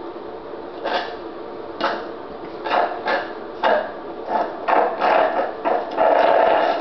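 Milkshake being sucked up through a drinking straw: a string of short slurping sucks that come closer together, merging into one continuous slurp near the end.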